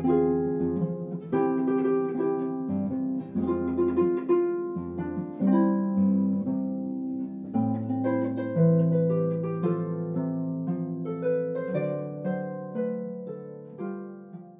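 Solo harp music: a gentle melody of plucked notes over low bass notes, each note ringing and dying away, growing a little softer near the end.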